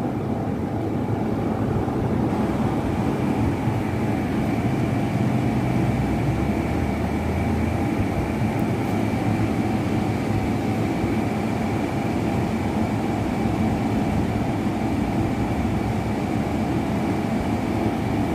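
Steady, unbroken drone of factory machinery: a dense low rumble with a constant high whine over it.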